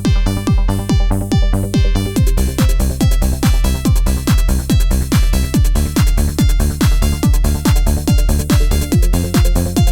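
Electronic dance music with a steady kick-drum beat of about two beats a second; a fuller, brighter layer comes in about two seconds in.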